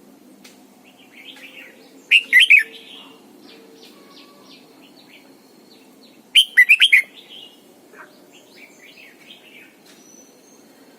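Red-whiskered bulbul singing: two loud, short warbled phrases, one about two seconds in and one about six seconds in, with fainter chirps in between.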